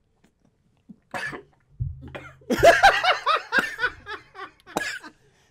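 A man coughing and choking after a gulp of beer went down the wrong pipe, with bursts of laughter about two and a half seconds in.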